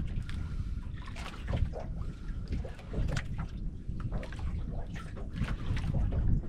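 Sea water lapping and sloshing against the hull of a small outrigger boat, with wind buffeting the microphone and scattered short knocks and splashes.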